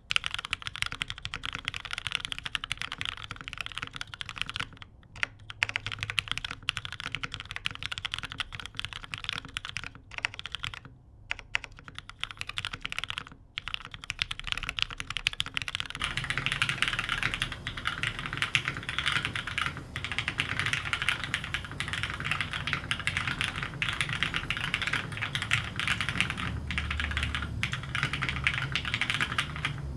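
Continuous fast typing on an OTD 360C custom mechanical keyboard with lubed vintage Cherry MX Black linear switches in a top-mounted aluminium plate, under Cherry G81-3100 keycaps: a dense stream of key clacks with brief pauses. About halfway through the sound turns fuller and bassier, picked up by a different microphone.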